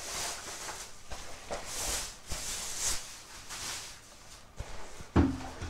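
Clear plastic wrapping crinkling and rustling in uneven bursts as a tripod in its carry bag is pulled out of it, followed by a short thump about five seconds in.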